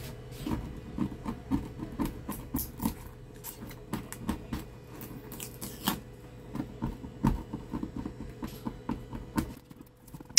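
Fingers picking and peeling hardened polarizer film off the glass of an LCD panel: irregular small crackles, scratches and ticks as the brittle film flakes away, thinning out near the end.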